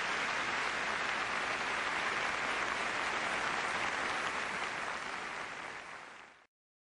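Audience applauding steadily, fading out over the last second or so and then cutting off to silence.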